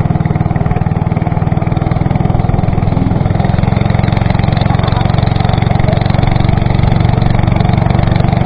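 Small engine of a wooden longboat running steadily, driving the boat along at cruising speed.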